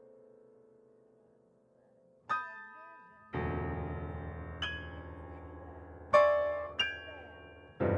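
Slow, sparse piano music: a held chord fades almost away, then single notes and deep chords are struck every second or so and left to ring, the loudest about six seconds in.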